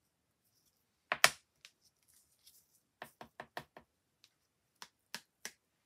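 Sharp knocks and taps on a craft desk while a glitter pot and a glittered paper cut-out are handled: one loud double knock about a second in, then a quick run of five taps and three more near the end, as excess glitter is tapped off.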